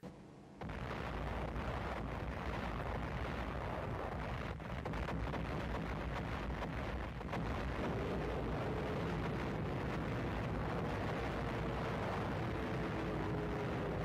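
Old wartime film soundtrack of battle noise: a steady rumbling roar of explosions and gunfire, growing a little louder about seven seconds in. Faint steady tones come in during the second half.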